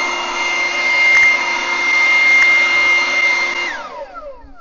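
LIGO 20V cordless brushless leaf blower running at a steady speed, a high whine over the rush of air. It is switched off about three and a half seconds in, and the fan spins down in a falling whine.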